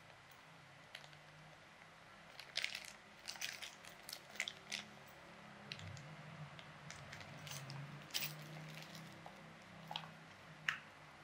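A run of short, irregular clicks and crunches, busiest in the first half, over a faint low hum.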